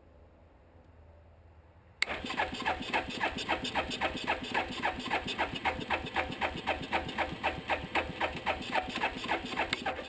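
Electric starter cranking the 1988 Suzuki Quadrunner 300's single-cylinder engine on full choke: a steady chugging of about four strokes a second that starts suddenly about two seconds in and keeps on for some eight seconds without the engine catching, a cold hard start.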